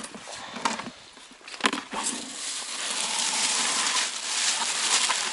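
A couple of sharp clicks as the lid of a plastic fish container is worked open. Then a long, steady rustle as a handful of green grass packed over the catch is pulled out.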